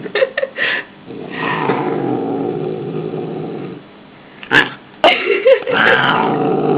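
Angry house cat growling: a long low growl, a sharp knock about four and a half seconds in, then louder growling with wavering, rising and falling yowls.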